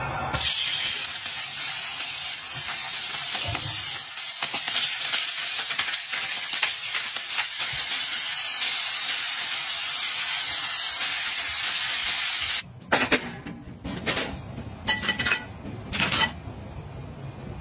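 Food sizzling in a pan: a steady hiss that cuts off suddenly about three-quarters of the way through, followed by a few sharp clicks and knocks.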